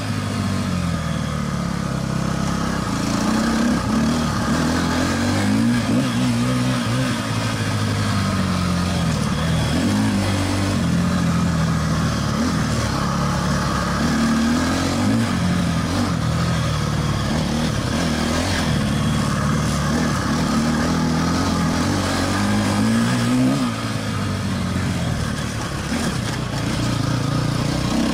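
KTM 250 EXC-F four-stroke single-cylinder enduro engine under load on a dirt trail, its pitch rising and falling over and over as the rider opens and closes the throttle through the corners.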